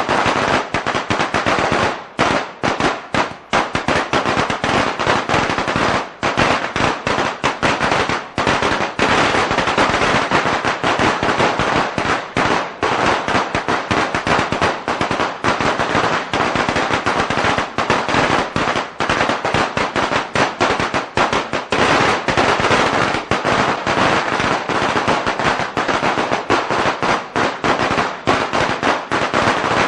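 A long string of firecrackers going off in a dense, continuous crackle of rapid bangs, with only a few brief gaps.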